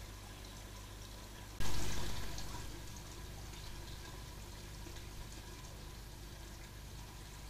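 Steady hiss from a trail camera's microphone. About one and a half seconds in, a sudden loud rush of noise starts and fades away over about a second.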